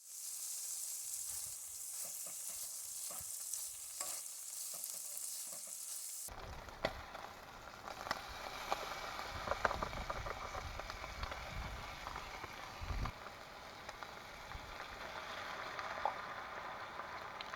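Steady hissing and crackling noise with scattered sharp pops. The hiss is high-pitched at first and changes abruptly about six seconds in to a lower, fuller crackle.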